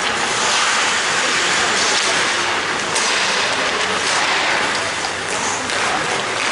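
Ice hockey play on an indoor rink: skates scraping and carving the ice under a steady rushing noise, with a sharp clack about three seconds in.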